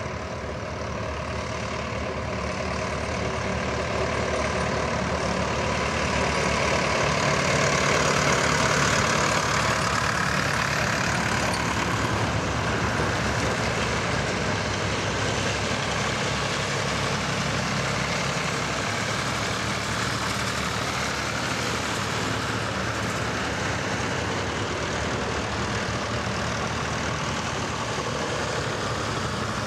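A procession of vintage farm tractors driving past one after another, their engines running steadily, loudest about eight to ten seconds in.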